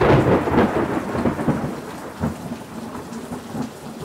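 Thunder over steady rain: a loud rumble breaks at the start and fades out, with a smaller swell about two seconds in.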